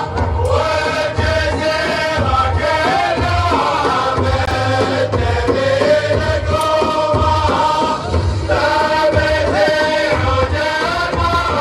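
A shailah, an Arabic sung poem chanted by a male voice over a pulsing low beat.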